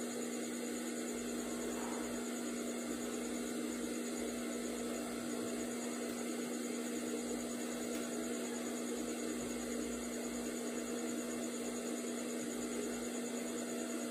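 Steady electric motor hum with a hiss, unchanging throughout.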